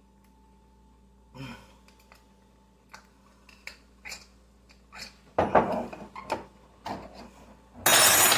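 A knife prying at the metal lid of a tightly sealed glass pasta-sauce jar, with small scattered clicks and scrapes. These grow busier and louder from about five seconds in. Near the end there is a loud knocking as the jar is struck against the countertop to loosen the lid.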